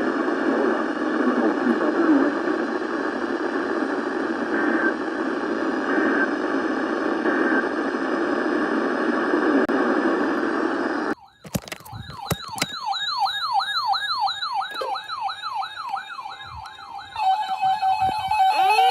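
Muffled, hissy radio-style audio for about eleven seconds that cuts off abruptly. Then an electronic siren warbles rapidly up and down, giving way near the end to a steady pulsing alert tone and rising glides.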